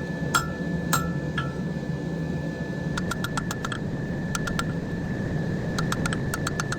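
Hand hammer tapping a hot wrought-iron san mai billet on an anvil to dress the edges of the forge-welded billet, each blow ringing briefly. Three blows come about half a second apart near the start, then after a pause come quick clusters of light taps. A steady hum runs underneath.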